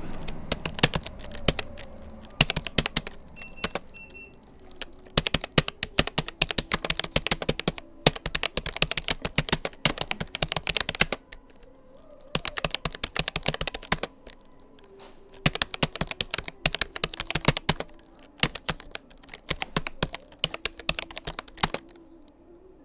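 Rapoo computer keyboard being typed on in quick runs of key clicks, each lasting a few seconds. Short pauses come between the runs.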